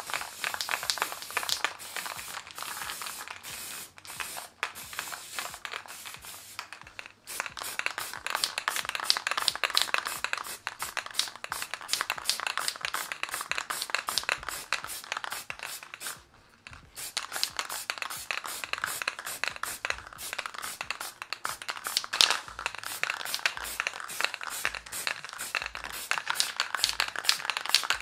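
Aerosol spray paint can hissing in long sprays, with short breaks about 7 seconds in and again about 16 seconds in.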